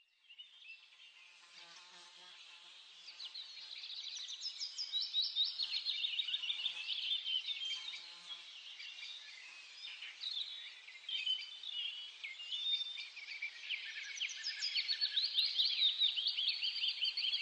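Birds chirping: many short, high chirps and trills overlapping. They are faint at first, then grow busier about three seconds in and again near the end.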